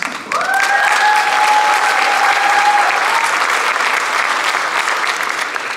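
Theatre audience applauding, thinning out near the end. A steady high tone is held over the clapping for about two and a half seconds near the start.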